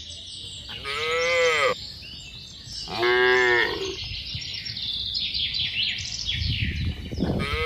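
Cattle in a herd mooing three times, high-pitched calls that rise and fall: one about a second in, a flatter one about three seconds in, and one near the end. Birds chirp throughout.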